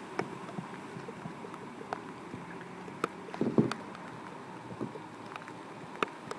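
Tropical storm wind giving a steady rushing hiss, with scattered sharp ticks and a short louder clatter about three and a half seconds in.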